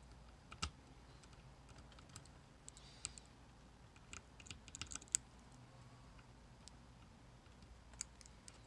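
Faint, irregular small metal clicks of a pick and tension tool working the pins of a 7-pin tubular lock, a Snap-On toolbox lock, mid-pick. The clicks come singly and in small bunches, busiest about four to five seconds in.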